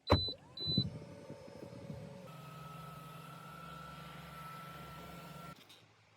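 Car sounds: a loud thump, two short high electronic beeps, and another thump within the first second. Then a steady low hum with a held high tone for about three seconds, which cuts off suddenly.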